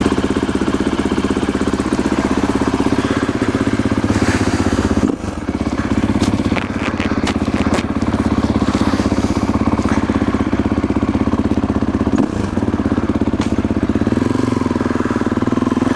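Motorcycle engine running steadily, its level dropping briefly twice, about five and about twelve seconds in.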